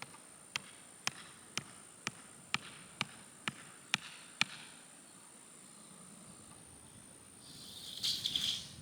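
A run of about ten sharp, evenly spaced clicks, roughly two a second, stopping about four and a half seconds in, followed near the end by a brief rustle, with a faint steady high whine throughout.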